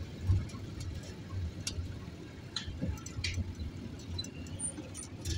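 Street background noise: a steady low traffic rumble with a few scattered light clicks and taps.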